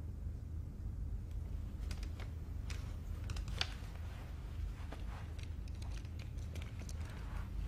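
Low steady rumble of room tone with scattered small clicks and ticks, the sharpest about three and a half seconds in: handling noises of a seated man taking off his eyeglasses at a table.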